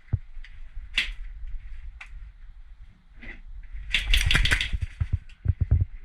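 Airsoft guns firing: a few single sharp shots in the first couple of seconds, then a rapid burst of fire about four seconds in, followed by several separate shots near the end.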